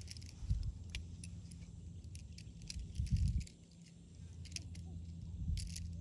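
Tent pole sections clicking and clinking together as a segmented tent pole is folded up, over a steady low rumble. A louder low thump comes about three seconds in.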